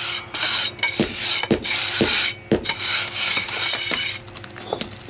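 Pea gravel being scraped and levelled with a hand tool in short, gritty strokes, with four sharp knocks about half a second apart.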